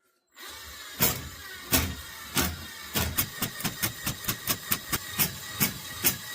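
Ryobi 18V cordless drain auger's motor starting up and running, with sharp clicks or knocks from the spinning cable that come faster and faster, reaching about three to four a second by the end.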